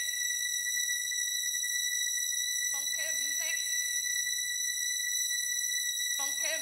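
Part of a club DJ mix: a steady high-pitched tone with overtones is held throughout. Short warbling pitched phrases recur about every three and a half seconds, over a faint pulsing low note.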